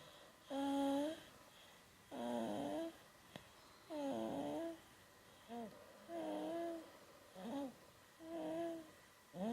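A four-month-old baby snoring, each breath a squeaky, pitched note, about one every two seconds.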